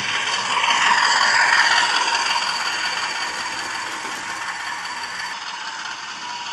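A Hornby Class 50 OO-gauge model locomotive running on its track, a steady mechanical rattle and whir from its motor, gears and wheels that swells about a second in and then eases off.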